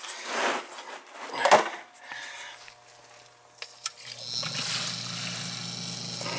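Submersible sump pump being tested by lifting its float switch by hand: after a couple of short rustling bursts, a click and then the pump starts about two-thirds of the way in, running with a steady low hum and the churn of water being pumped out of the pit.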